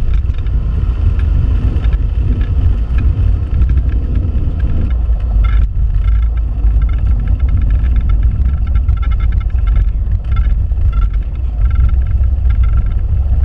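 Cessna 172P's four-cylinder Lycoming engine and propeller running steadily at low power as the plane rolls out after landing and turns off the runway. It is heard from inside the cabin as a loud, deep, even drone.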